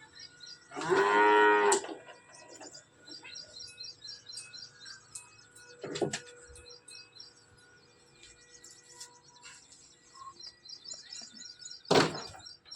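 A cow or buffalo-type bovine mooing once, a loud call lasting about a second near the start, with faint bird chirps in the background and two sharp knocks, one in the middle and one near the end.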